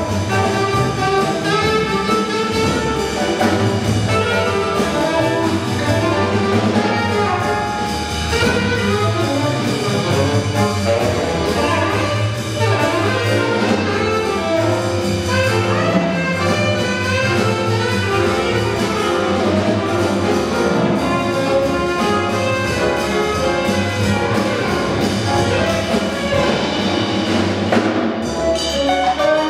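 Live small jazz ensemble playing a post-bop tune: saxophones and trumpet over piano, guitar, upright bass and drum kit, with the three horns playing together near the end.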